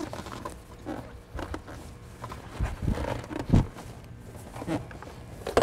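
Scattered clicks and knocks from hands working on a car's plastic air cleaner box and intake tubing, closing it up after an air filter change, with two heavier thumps about halfway through and a sharp click near the end.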